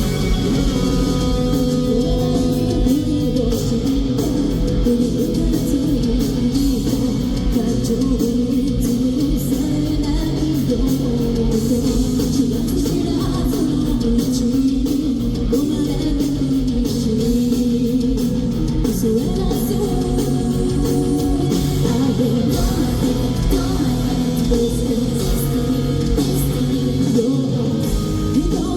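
Live rock band playing loudly through an arena PA: distorted electric guitars, bass and drums, with a lead singer over them.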